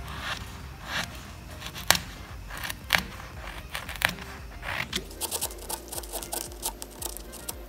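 Bench chisel paring a taper onto the end of a wooden dowel: a run of short, sharp cutting clicks, about one a second at first, then quicker small cuts in the second half.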